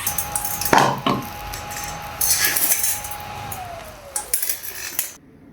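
Metal cookware and utensils clinking and clattering, with a few sharp knocks near the start, over a steady hiss that cuts off abruptly near the end.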